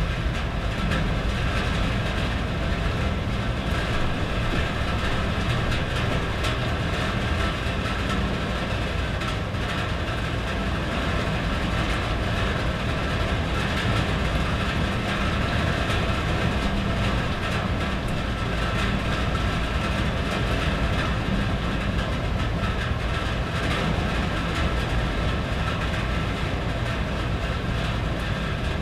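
Steady heavy rain falling on a tin roof, a dense even patter with a constant low rumble underneath.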